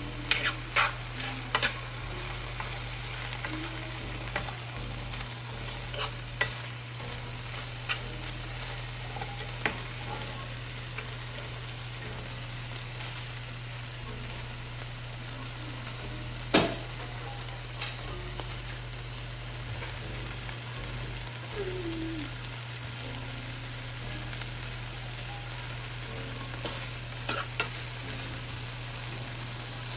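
Chicken frying in a pan, sizzling steadily, while a utensil stirs it and clicks against the pan several times in the first two seconds, once sharply about halfway and a few times near the end.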